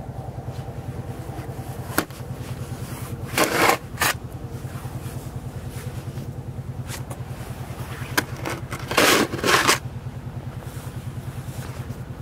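A motor running steadily with a rapid low pulse, about ten beats a second. Over it come several sharp clicks and two short scraping bursts, one about three seconds in and one about nine seconds in.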